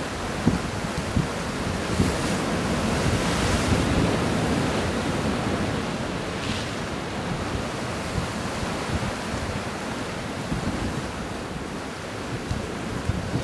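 Sea waves washing against a harbour breakwater, with wind buffeting the microphone. A wave surges louder about three seconds in.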